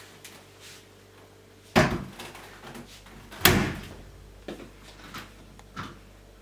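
Front-loading washing machine door being slammed shut: two loud thuds about a second and a half apart, followed by a few lighter knocks.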